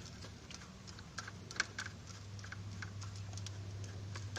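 Small irregular clicks and ticks of a screwdriver working out the screws that hold the cooling fan inside a Polytron speaker, over a low steady hum.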